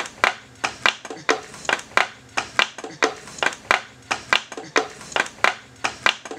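A run of sharp knocks or strikes, about three a second, in a steady but slightly uneven rhythm, each with a short ring.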